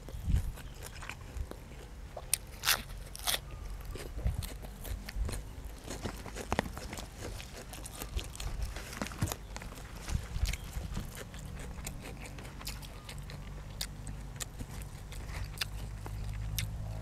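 A person eating with the microphone close, biting and chewing crunchy food in a run of irregular crisp crunches and smacks. A low steady rumble runs underneath.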